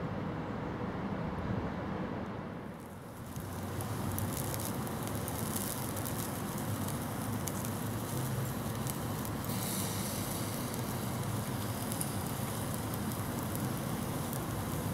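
Zucchini slices sizzling on the wire grate of a small charcoal bucket grill: a steady crackle of fine pops that starts about three and a half seconds in, over a low rumble that runs throughout.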